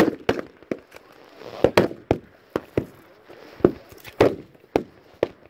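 Scattered rifle fire from blank-firing battle reenactors: about a dozen sharp shots at irregular intervals. Some are close and loud, others fainter from farther off.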